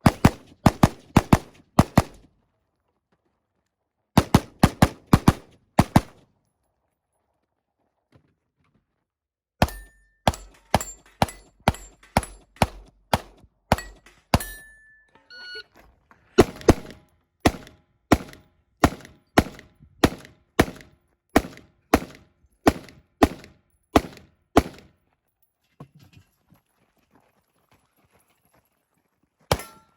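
Semi-automatic AR-style rifle fired in quick strings of single shots, about two to three a second, with short pauses between strings.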